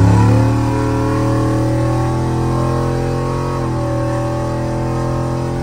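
Cammed 370-cubic-inch LS V8 with long-tube headers and dual 3-inch exhaust, accelerating under light throttle and heard from inside the cab. The engine note climbs at first, then holds nearly level with a brief dip about three and a half seconds in. This is a gentle test pull in third-gear drive to check the shifts.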